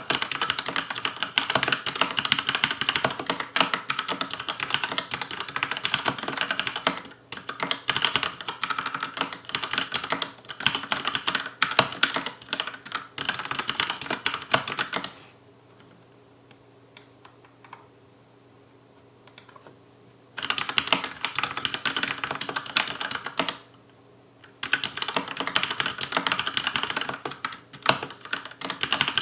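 Fast touch-typing on a Logicool K835 TKL mechanical keyboard with TTC linear red switches and an aluminium plate, a dense run of keystroke clacks. About halfway through the typing stops for about five seconds, leaving only a few scattered key presses, then starts again, with one more short pause near the end.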